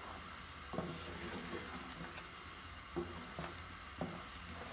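Onion, green chilli and spice paste frying in ghee with a steady sizzle while a wooden spoon stirs it, knocking softly against the metal pot about four times. This is the bhuna stage, frying the masala to cook out the raw taste of the spices and onion.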